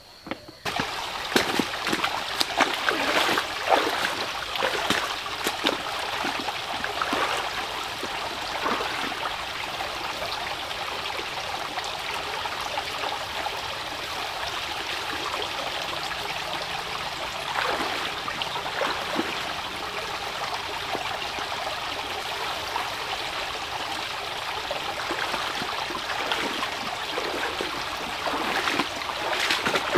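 A shallow stream running and trickling steadily, starting about half a second in, with scattered splashes and pours as water is scooped with a plastic scoop.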